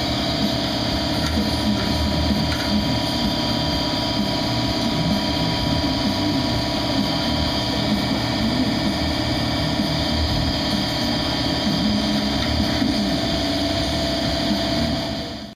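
A shop power tool running steadily, with a constant hum under dense mechanical noise, cutting off abruptly near the end.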